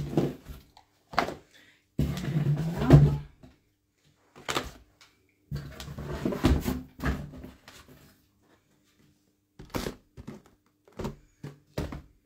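Rummaging in a cardboard shipping box: irregular rustling of packing and cardboard, with short knocks and thuds as items are lifted out and set down.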